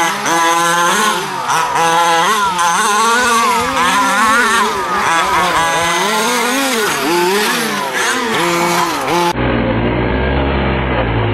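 Small two-stroke petrol engine of a 1/5-scale RC truck, revving up and down over and over as the truck is driven, its pitch rising and falling with the throttle. About nine seconds in, the sound cuts abruptly to a duller, muffled recording with a low steady hum.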